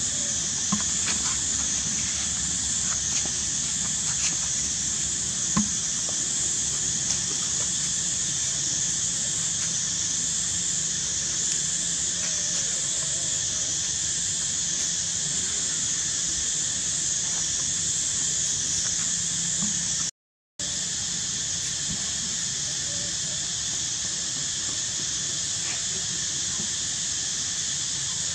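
Steady, high-pitched buzzing of an insect chorus that swells and fades in a slow, even pulse, with a few faint clicks in the first seconds. It cuts out for a moment about twenty seconds in.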